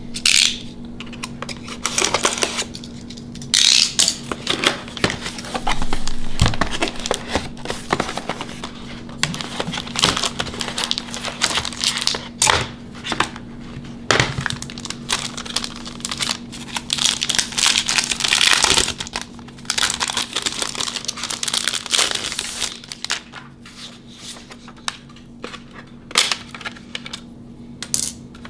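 Hands opening a keyboard's retail packaging: the cardboard box and plastic wrapping rustle and tear, with scattered clicks and knocks as parts are handled. It gets quieter near the end.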